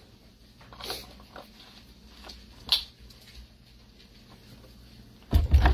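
A few faint handling clicks, then a short loud thump near the end.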